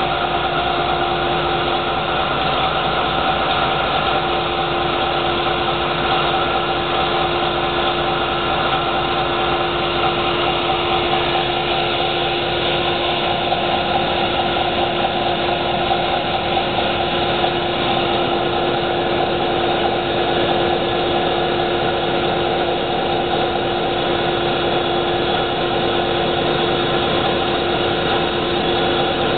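Caterpillar D399 V16 diesel engine running steadily at constant speed, a dense mechanical din with a strong steady hum and no change in speed.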